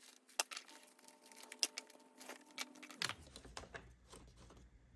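Paper cash being handled and set out: soft crinkling and rustling with scattered light taps and clicks.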